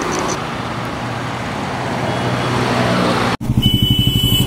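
Road traffic noise from vehicles passing on a street. About three seconds in it cuts off abruptly, and a louder low rumble that pulses quickly takes over, with a steady high tone above it.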